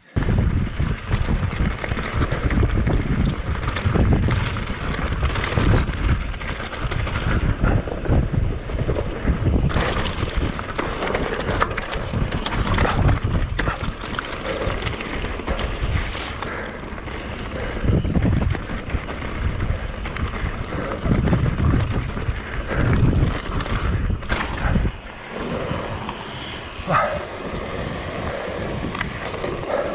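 Mountain bike descending a rocky trail at speed: wind rushing over the microphone, with the tyres rumbling over loose stones and the bike knocking and rattling on the bumps. About 25 seconds in, the rumble drops away as the bike rolls onto smooth tarmac.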